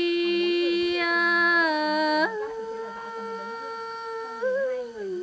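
A woman singing Tày lượn cọi folk song unaccompanied, holding long drawn-out notes. A loud steady note steps up about two seconds in to a softer, higher one, which bends and slides down near the end.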